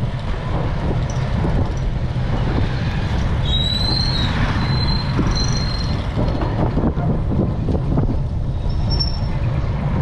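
Steady wind buffeting on an action camera's microphone while cycling along a road, with a brief high-pitched squeal a few seconds in.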